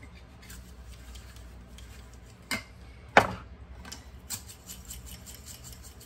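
Two sharp knocks, then a pepper mill being twisted, a rapid run of small ratcheting clicks starting about four seconds in.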